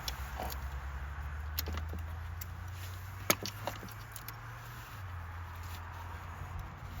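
A few sharp plastic clicks and light rattles, the loudest about three seconds in, as the electrical connectors are unclipped from the ignition coil packs. A steady low hum runs underneath.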